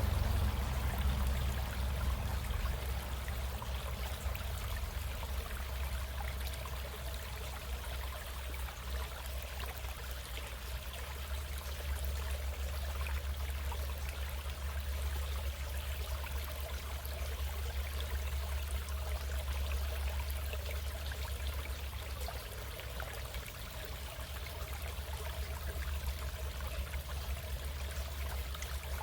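A stream running steadily: an even rush of flowing water with a strong low rumble underneath.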